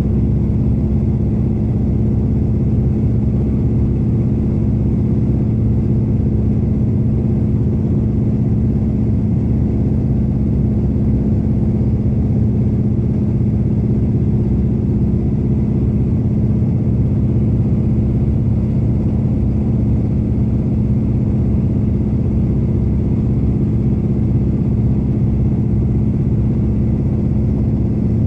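Antonov An-2's nine-cylinder radial engine running steadily in flight, heard from inside the cabin.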